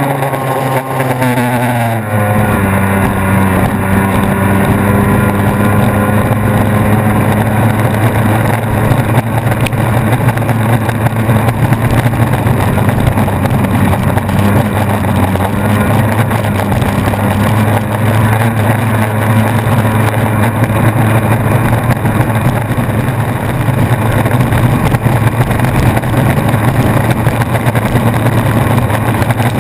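Racing boat's engine heard from on board at full throttle: its pitch climbs over the first couple of seconds as the boat accelerates, then holds high and steady at racing speed, over a constant rush of wind and water.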